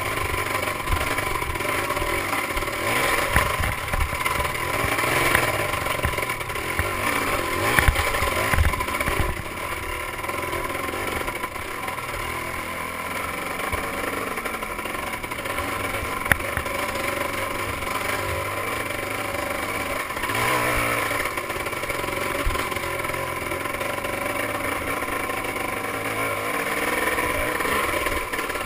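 Dirt bike engine running hard and revving up and down over rough trail, heard from a helmet-mounted camera. Several knocks and rattles from the bike over the bumps come in the first ten seconds, with one sharp click a few seconds later.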